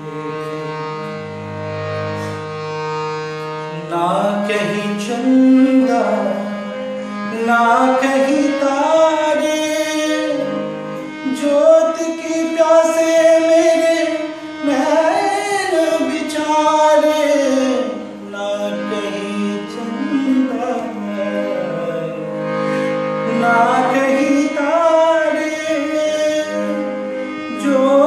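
Harmonium holding steady notes for the first few seconds. A man's voice then enters, singing a Hindi film song in raga Ahir Bhairav with ornamented glides and long held notes over the harmonium.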